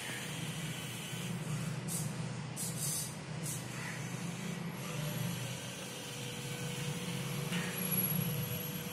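Small DC gear motors of an Arduino obstacle-avoiding robot car whirring steadily as it drives, with a few brief higher-pitched whirs.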